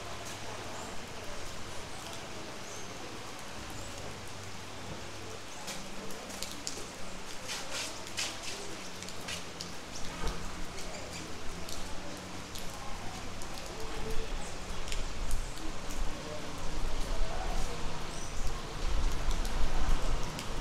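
Steady rain falling on roofs and the street, with a flurry of close drips striking a hard surface about six to ten seconds in. A low vehicle rumble builds over the last several seconds.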